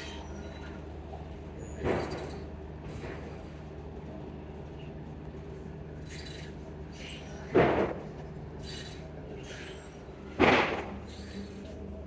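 A steady low engine hum, with three loud sudden knocks or slaps that fade quickly, about two, seven and a half, and ten and a half seconds in.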